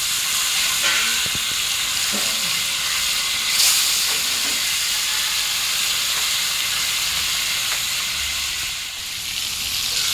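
Masala-coated fish pieces shallow-frying in hot oil on a large dosa griddle: a steady, loud sizzle.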